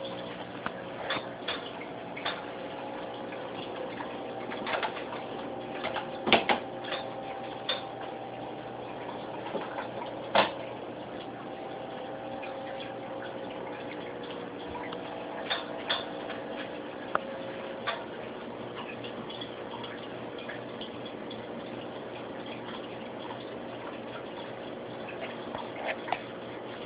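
Steady hum of aquarium equipment, such as a filter or air pump, with scattered light clicks and taps; the two loudest clicks come about six and ten seconds in.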